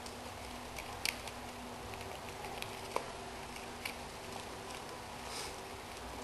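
Scattered light clicks and crinkles of plastic-wrapped wafer packets being pushed into a box by hand, the sharpest about a second in and three seconds in, over a faint steady hum.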